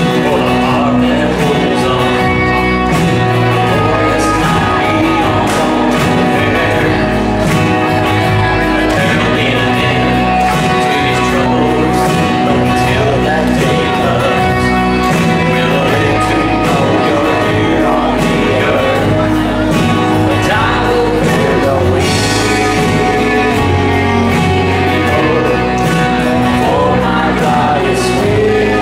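Live band playing rock-style gospel worship music with singing, drums and guitar, at a steady, loud level.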